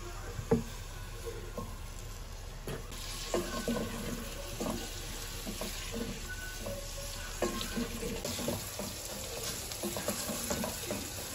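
Sliced onions starting to fry in oil in an aluminium pot, stirred with a wooden spoon that knocks and scrapes against the pot. There is a sharp knock about half a second in, and the sizzle grows louder about three seconds in.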